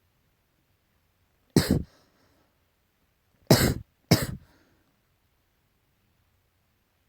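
Three short coughs, an allergy cough: one about a second and a half in, then two close together about two seconds later.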